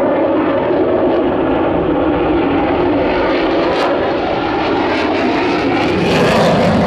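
Sukhoi Su-35 fighter's twin AL-41F1S turbofan engines in flight: a loud, steady jet roar that swells briefly near the end.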